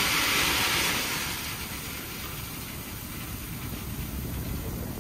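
Heavy machinery noise: a hiss that dies away over the first second or so, leaving a low, steady rumble.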